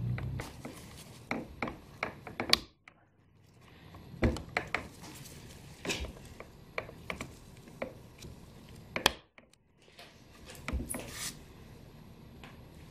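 Scattered light clicks, taps and rubbing of plastic as a new air filter is pressed and snapped into the filter housing of a Stihl MS250 chainsaw, a tight fit.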